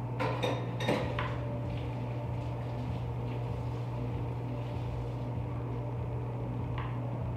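Kitchen utensils and dishes clinking and clattering: a cluster of knocks in the first second or so, then only occasional light taps, over a steady low hum.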